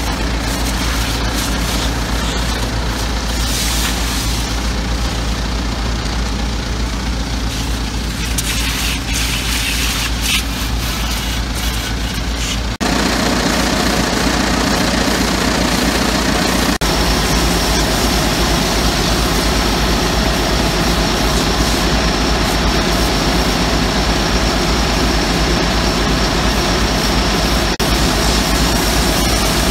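Pressure-washer lance jetting water onto a crop sprayer's steel boom and mud-caked tyres, with the hiss of the spray over the steady drone of an engine running. The sound steps up abruptly about thirteen seconds in.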